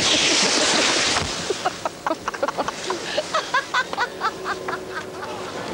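A loud rushing hiss for about a second, then a quick run of short high-pitched vocal cries from two women sprawled in the snow after falling off a chairlift.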